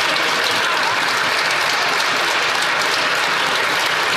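Members of Parliament applauding in the House of Commons chamber: a steady, dense spread of clapping from many hands.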